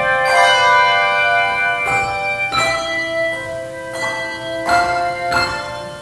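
Handbell choir ringing a hymn-like piece: chords of several handbells struck together every half second to second and a half, each chord ringing on and overlapping the next.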